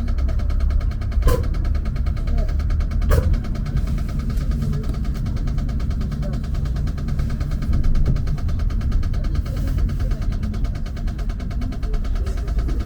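Trolleybus running, with a steady low rumble and a thin whine above it. Two sharp clicks come within the first few seconds.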